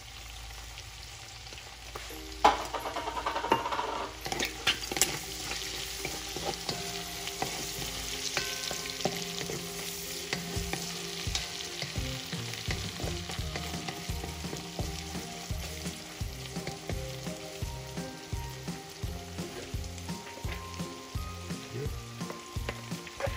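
Shrimp and diced celery sizzling in oil in an aluminium pot while a wooden spoon stirs and scrapes through them. The stirring is loudest for a few seconds starting about two and a half seconds in.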